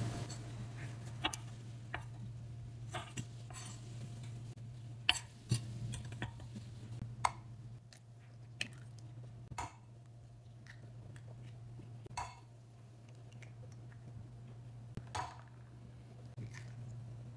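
Scattered short taps and clicks of kitchen prep, among them eggs cracked one after another on the rim of a ceramic bowl, over a low steady hum.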